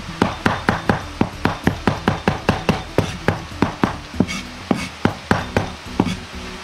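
Chinese cleaver mincing garlic on a cutting board: a steady run of sharp chops, about four or five a second.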